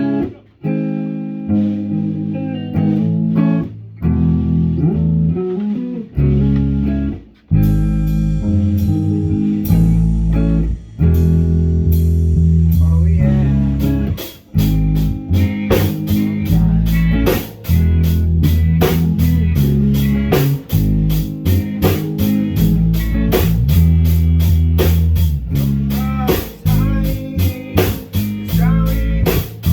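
Music played on guitar and bass. A drum kit comes in about a quarter of the way through, with busier cymbal hits from about halfway.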